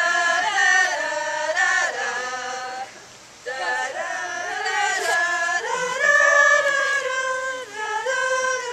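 Singing: one melody in phrases of long held and sliding notes, with a short break about three seconds in.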